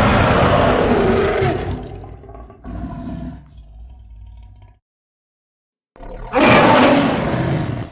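King Caesar monster roar sound effects: a loud roar that fades out over the first two seconds, a shorter, weaker call about three seconds in, a second of silence, then a fresh loud roar starting about six seconds in.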